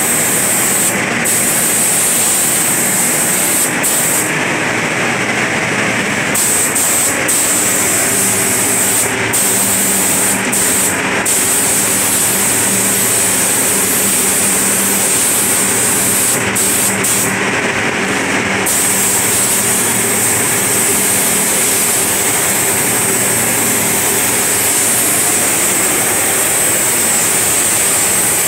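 Gravity-feed paint spray gun hissing steadily as compressed air atomises the paint. The hiss drops out briefly several times, over a steady low hum.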